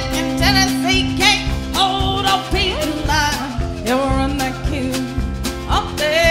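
Live country band playing an up-tempo honky-tonk number: a high lead line that slides and bends in pitch over a steady drum and bass beat.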